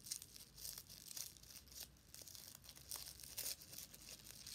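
Small plastic wrapper crinkling and tearing as it is worked open by hand, in short, irregular rustles.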